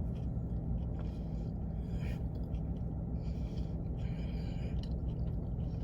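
Chewing a sub sandwich, with soft mouth noises and breaths, over a steady low hum.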